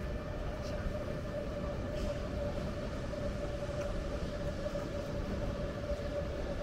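Steady low rumble with a constant mid-pitched hum, unchanging throughout, with a few faint light ticks.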